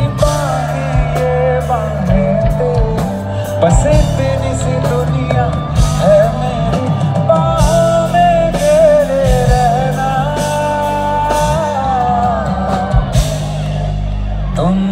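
A male singer's voice, amplified through the PA, sings a melody over a live band with electric guitar, bass and drums. He holds a long note about two-thirds of the way through, and the voice drops back near the end while the band plays on.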